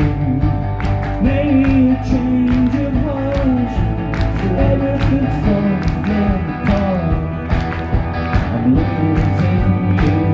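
Live pop-rock band playing a song, with a steady drum beat under guitars and bass and a melodic line above.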